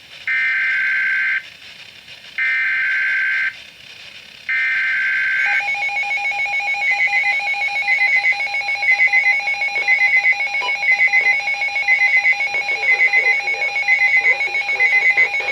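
Emergency Alert System broadcast tones on a weather radio. First come three short bursts of SAME digital header data, a harsh two-pitch screech about a second long with short gaps between them. Then, from about five and a half seconds in, a steady alert tone sounds with rapid electronic beeping over it.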